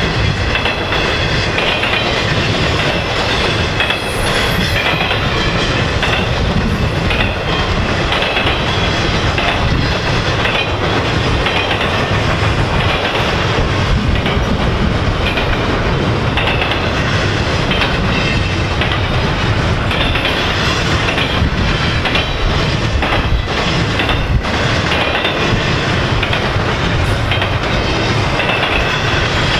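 Intermodal freight train cars (piggyback trailers and double-stack containers) rolling past at steady speed: a continuous rumble with the clickety-clack of wheels over the rail joints.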